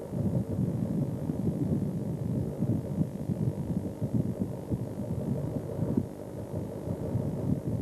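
Wind buffeting the camcorder microphone on the open sea: an irregular low rumble that flutters constantly.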